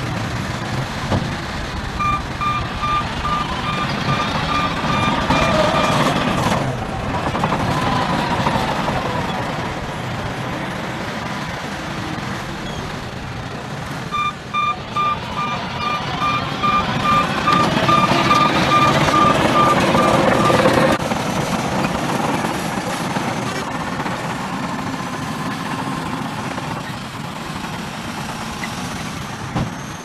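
Heavy dump trucks' diesel engines running under load as they tip soil. A truck's warning alarm beeps steadily in two runs of a few seconds each.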